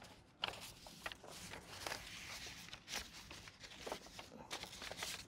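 Sheets of painted paper rustling as they are handled and spread out on a table, with a few sharp taps.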